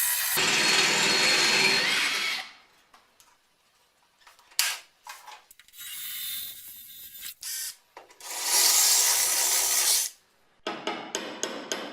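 Electric drill boring out the spot welds in car body sheet steel, in two bursts of a couple of seconds each with quieter scraping between them. Near the end comes a quick series of hammer strikes on metal.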